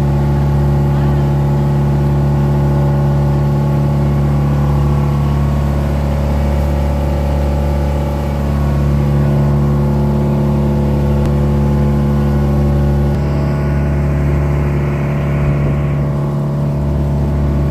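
Motorboat engine running at a steady speed under way, a constant low drone with a steady hiss over it.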